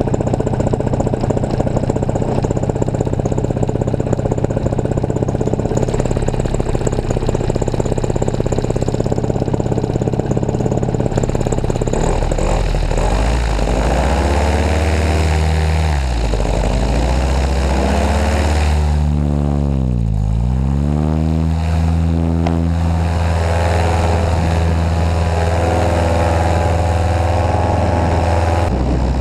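Paramotor engine and propeller running loud and steady close to the pilot. About halfway through its low end swells and the sound sweeps up and down in a phasing way, with two deep dips, as the throttle is worked for the launch run.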